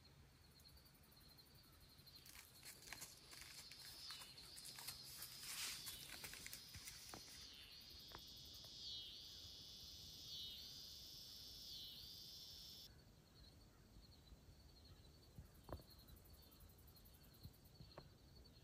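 Faint outdoor insect sounds: a steady high thin buzz throughout, with a louder high buzz in the middle that swells and fades about every second and a half. Before that comes a stretch of soft crackling rustle.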